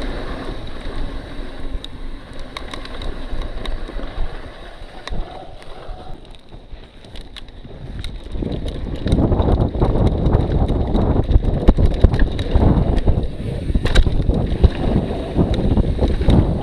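Wind rushing over the microphone of a camera carried on a fast downhill run, with rumble, scattered clicks and rattles. It eases off briefly and then gets much louder from about nine seconds in as speed picks up.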